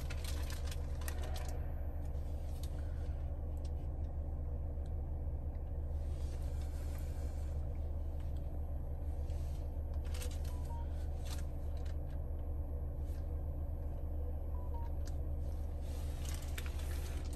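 Steady low hum in a car cabin, with scattered light taps and clicks and two short soft beeps, about ten and fourteen seconds in.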